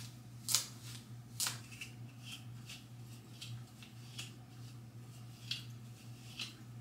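Wide-tooth comb drawn through wet curly hair: a series of short, faint rasping strokes, about one a second, over a low steady hum.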